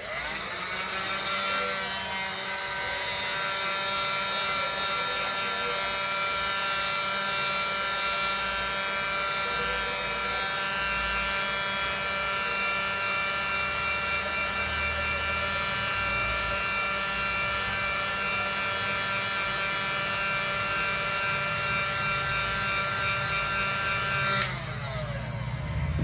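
Hot air gun running steadily, a small motor's whine over a hiss of blown air, heating a phone screen to soften the adhesive holding it. It cuts off near the end.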